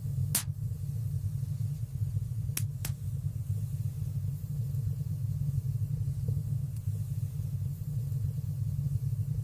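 Wood fire burning in a fireplace: a steady low rumble of the flames with a few sharp crackles, one about half a second in and two in quick succession between two and three seconds in.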